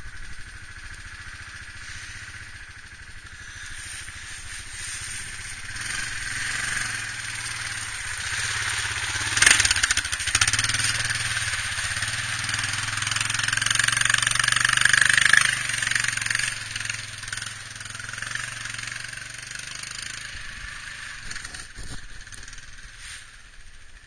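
ATV (four-wheeler) engine running as the quad works through mud and water, swelling to its loudest around the middle and fading away near the end.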